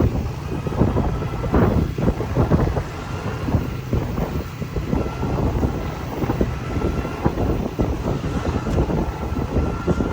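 Wind buffeting the microphone over the rumble of a moving open electric cart, with a faint steady whine throughout.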